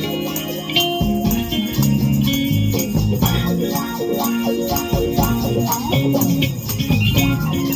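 A band playing music: shaken, jingling percussion clicks quickly and steadily over a moving bass line and other pitched instruments.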